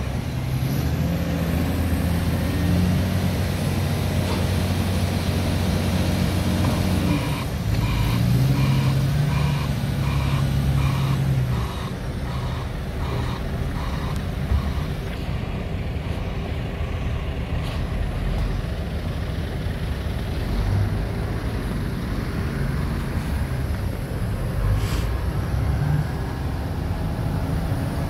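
Heavy diesel engine of a Svetruck log loader working as it lifts and carries a bundle of logs, revving up about eight seconds in. Soon after, a reversing alarm beeps about three times a second for a few seconds.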